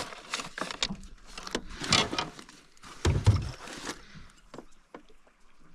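Rummaging in a bag and handling fishing gear in a small boat: scattered rustles and clicks, with a dull thump on the boat about three seconds in. The sounds die down over the last second or two.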